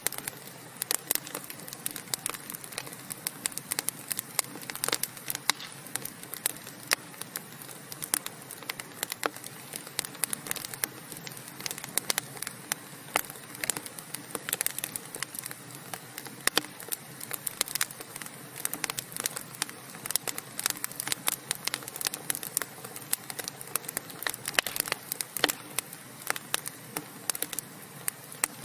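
Wood fire burning in a fireplace: irregular sharp crackles and pops, several a second, over a steady soft hiss.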